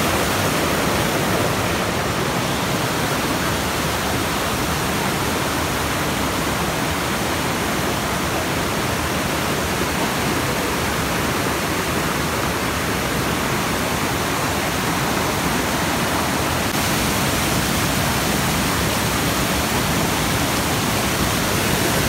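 Waterfall pouring steadily, heard up close from within its pool: a dense, even rush of falling water with no let-up.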